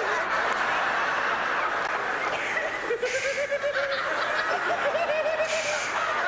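A congregation laughing and chuckling, many voices together, with wavering individual laughs rising out of the crowd noise from about three seconds in.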